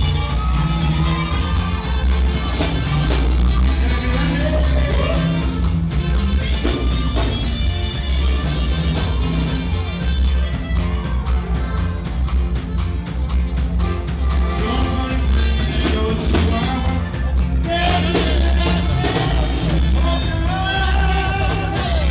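Live grupero dance band playing, with saxophone, guitar, bass and drums under a steady beat and a singer's voice.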